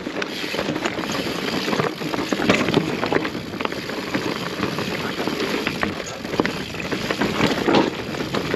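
Mountain bike rolling over loose volcanic rock and stones: the tyres crunch and clatter over the rubble, with a constant rattle of small knocks from the bike and wind on the microphone.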